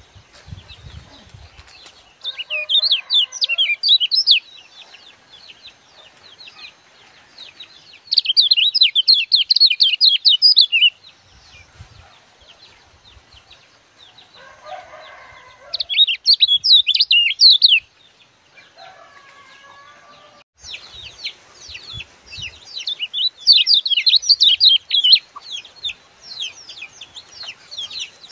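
Caged kecial kuning songbird singing in fast bursts of rapid, high chirping, four times, each burst two to three seconds long except the last, which runs about seven seconds near the end. Fainter, lower calls sound in some of the gaps between bursts.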